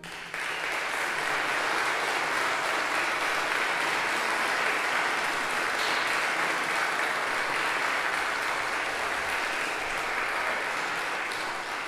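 Concert audience applauding steadily, starting a moment in, right after the wind band's final chord has died away; the clapping begins to thin near the end.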